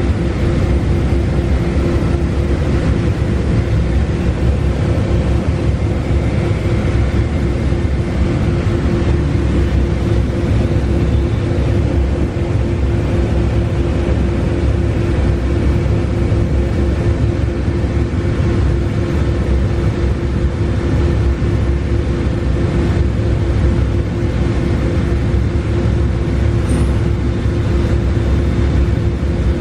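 Six-axis robotic trim router running steadily: a constant tone from the router spindle over a heavy, even rumble of machinery.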